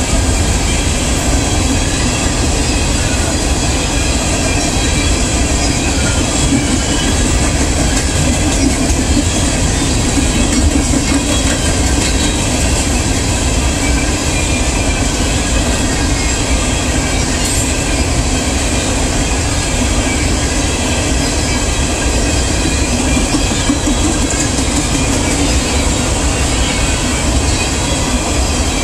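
Coal train's open-top hopper cars rolling past at steady speed: a continuous, even rumble of steel wheels on the rails.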